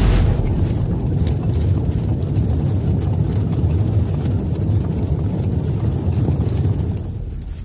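Deep, steady rumbling sound effect for an animated logo intro, fading out near the end.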